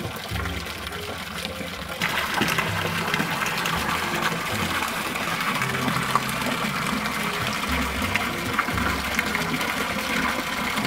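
Water pouring from a bamboo pipe into a swimming pool: a steady gushing splash, louder and brighter from about two seconds in.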